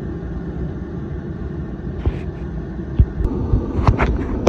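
Torpedo heater running with a steady low rumble, with a few sharp knocks about two, three and four seconds in.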